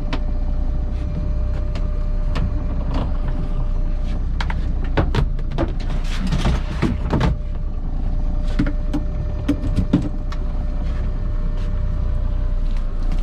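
Boat engine running steadily with a low rumble, with scattered knocks and clatter over it, most of them near the middle.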